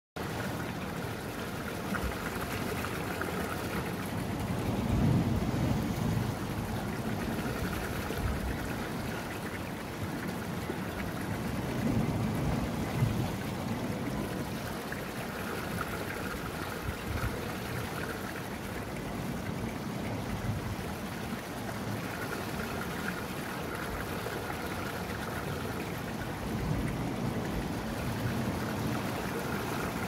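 Seawater pouring over a small ledge in a rock channel into a tidal pool: a steady rushing splash that swells louder every seven or eight seconds.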